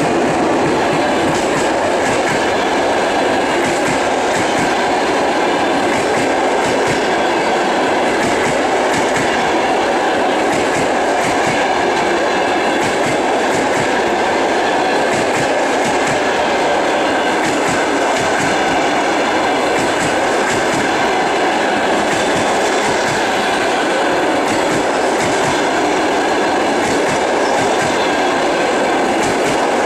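Passenger coaches of a long-distance train rolling past, their wheels clattering over the rail joints in a steady rumble.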